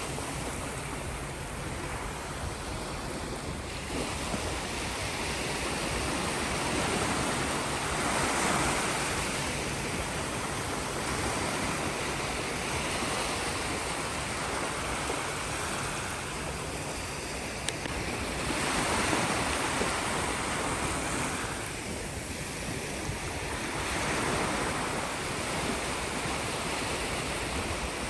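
Sea waves washing onto the shore as a continuous surf, swelling and easing in slow surges every several seconds.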